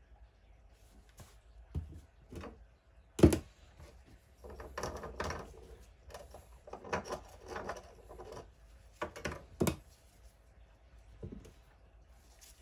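Knocks, clicks and scraping from handling a small casting flask and its pattern on a worktop while the mould is being prepared, with one sharp knock about three seconds in and a stretch of rubbing and scraping in the middle.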